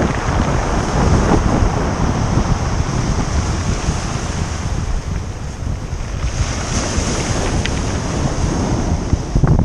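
Wind buffeting the GoPro microphone over small waves breaking and washing up a pebble beach, getting louder near the end.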